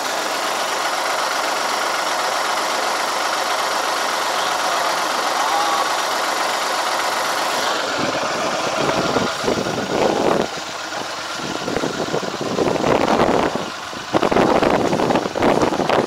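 Iseki TJV semi-crawler tractor's diesel engine running steadily close by. About eight seconds in, the engine sound drops away and irregular gusts of wind noise buffet the microphone.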